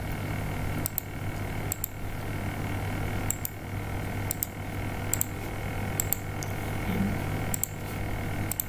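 Computer mouse clicking: sharp clicks, mostly in quick pairs, about once a second, over a steady low hum.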